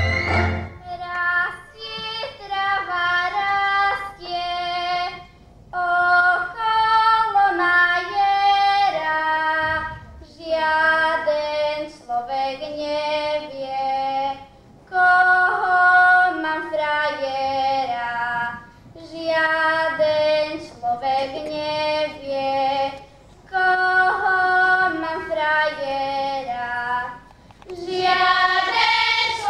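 A young girl sings a folk song solo and unaccompanied, in phrases of a few seconds with short breaks between. Near the end a children's choir comes in.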